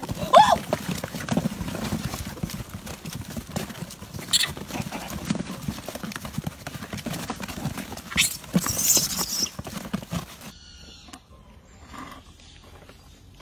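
A crowd of monkeys scrambling over a cardboard box of bananas: a dense clatter of rustling and tapping, with a short squeal near the start and sharper bursts about four and nine seconds in. About ten seconds in, the noise drops away to a much quieter background.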